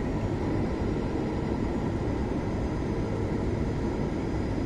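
Steady cabin noise of a Boeing 737 MAX airliner in descent: a constant rush of engine and airflow sound, heaviest in the low end, with faint steady tones running through it.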